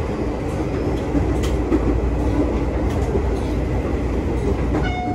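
KRL Commuter Line electric train running along the track: a steady rumble with a few sharp clicks from the rails. A ringing tone starts near the end.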